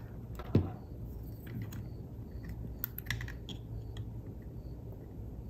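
Small plastic clicks and taps of a GoPro camera and its mounting parts being handled and fitted together, with a sharper click about half a second in and a scatter of lighter clicks after it.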